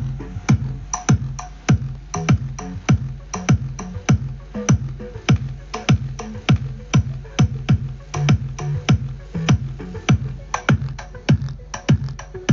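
Electronic dance music played through a homemade party speaker, its woofers driven by a 3055 amplifier board: a hard drum-machine beat about twice a second over heavy bass.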